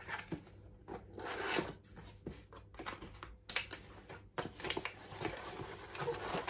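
Product packaging being handled and opened by hand: paper and cardboard rustling, scraping and tearing, with small knocks of items set down on the desk.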